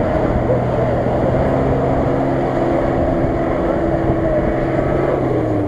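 Nissan Patrol's engine running steadily under load as the SUV drives out of muddy water onto grass, its note dropping near the end.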